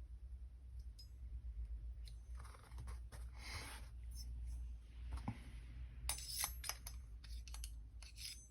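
Close-up handling of a small model nitro engine and its parts: rustling and scraping in the middle, then a quick run of small clicks and taps near the end, over a low steady hum.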